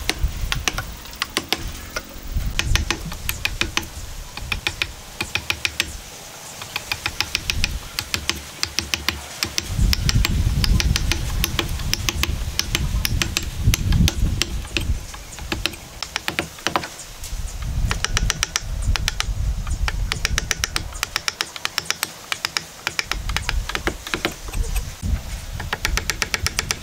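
Wood chisel worked by hand into a wooden joint, cutting and levering out wood. It gives runs of quick, sharp clicks, several a second, that come and go in groups.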